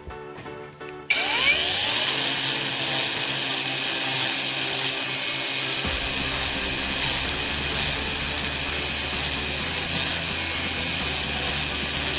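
Soft piano music, then about a second in a power drill starts abruptly and runs steadily under load, with a high, constant whine.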